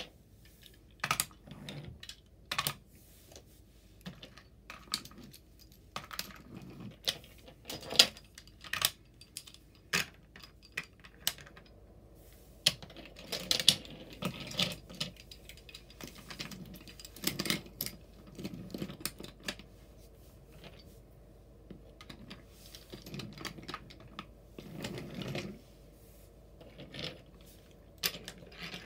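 Irregular sharp clicks, taps and light knocks of small toy trains and trucks being handled and moved about, with short runs of rattling and rolling here and there.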